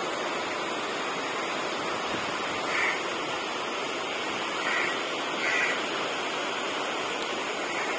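Steady rain falling on the station's sheet-metal platform roofs and tracks, an even hiss. Three short, slightly higher and louder sounds stand out about three, five and five-and-a-half seconds in.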